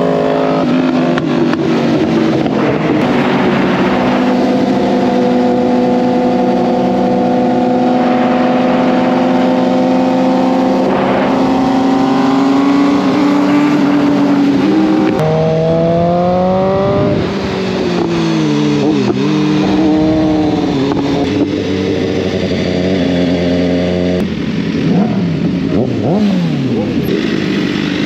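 Sport-bike engines running hard at a steady pitch as the group cruises. About halfway through the sound changes abruptly; the engine pitch then climbs, falls and dips as the bikes slow. Short revs from other bikes come near the end.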